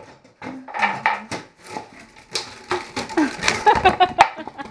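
A small puppy scrabbling and playing on a tiled floor: quick, irregular clicks and light clatters.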